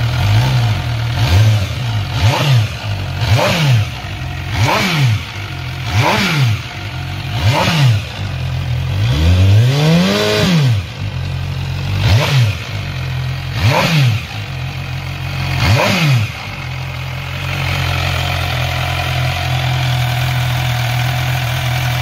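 MV Agusta Brutale 1000RR's inline-four engine running at a standstill, blipped about ten times in short rising-and-falling revs over a steady idle. One longer, higher rev comes near the middle, and for the last few seconds it settles to a steady idle.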